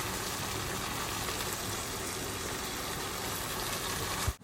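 Marinated chicken sizzling in oil in a kadai, a steady hiss as the water released from the chicken cooks off. It cuts off abruptly near the end.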